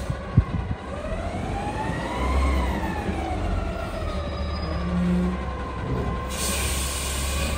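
Autocar garbage truck's diesel engine running as the truck creeps forward, its pitch rising and then falling, with a single sharp knock about half a second in. A steady air hiss starts near the end.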